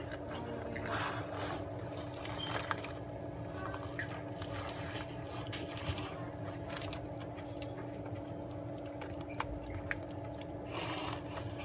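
Sulcata tortoises biting and chewing kale leaves: many small irregular crunches and tearing sounds, over a steady low hum.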